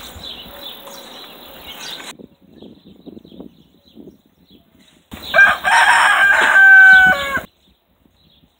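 A rooster crows once, loud and about two seconds long, ending on a long held note, about five seconds in. Before it, quieter rustling and scraping of a garden fork working through compost.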